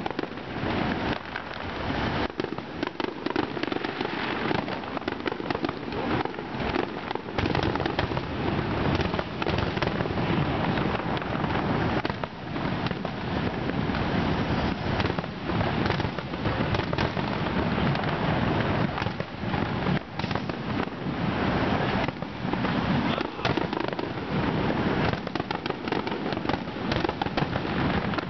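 Aerial fireworks display: a dense, unbroken string of shell bursts, bangs and crackling, one on top of another.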